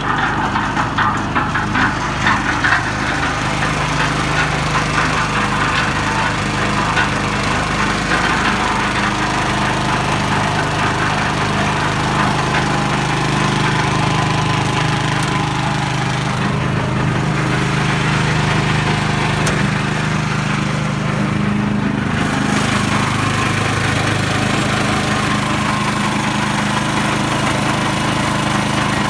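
Honda GX270 single-cylinder engine on a concrete mixer running steadily at a constant speed, with some rattling in the first few seconds.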